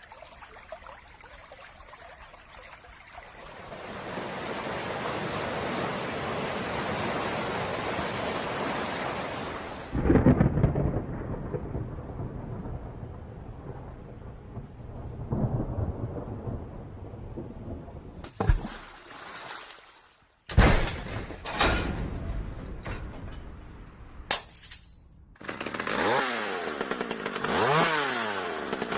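A sound-effects sequence: rain hiss swells over the first few seconds, then a loud thunderclap about ten seconds in, rumbling on. Several sharp cracks and impacts follow, and near the end a small engine revs up and down repeatedly.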